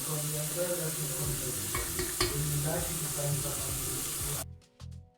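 Food sizzling as it fries in a pan, a steady hiss that cuts off abruptly about four and a half seconds in, giving way to quiet music.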